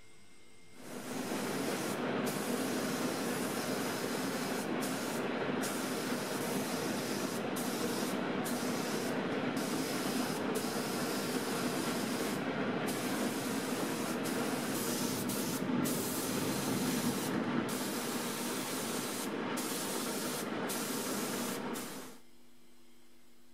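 Compressed-air gravity-feed spray gun spraying paint in a steady hiss. It starts about a second in, dips briefly a few times, and cuts off shortly before the end.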